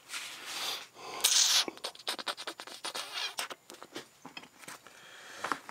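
Irregular metal scraping and light clicking from hand work at a stopped lathe, with two louder scrapes in the first second and a half and scattered small clicks after.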